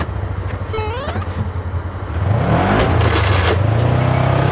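Side-by-side UTV engine running at a low idle, then revving up louder about two seconds in as the vehicle pulls away, with a couple of brief clatters.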